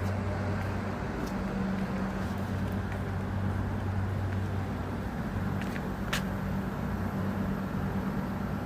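A motor or engine running steadily with a low hum, with a few faint clicks.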